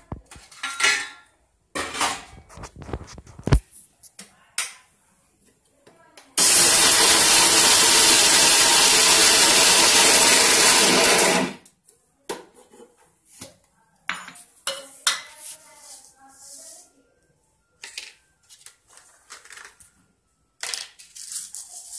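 Electric mixer grinder running at full speed for about five seconds, grinding roasted peanuts into chutney in its steel jar, then cutting off. Before and after it, short clatters of the steel jar and lid being handled.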